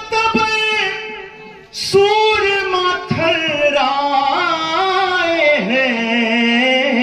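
A man singing a line of Urdu verse into a microphone, in a high voice with long held notes that bend and waver. He breaks off briefly about a second in and takes up the line again from about two seconds in.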